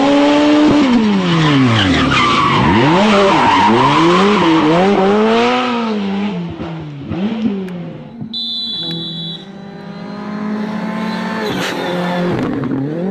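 Rally car engine revving hard, its pitch swinging up and down with lifts and gear changes, over tyre and gravel noise for the first six seconds, then running at a steadier pitch. A short high electronic beep sounds about eight seconds in.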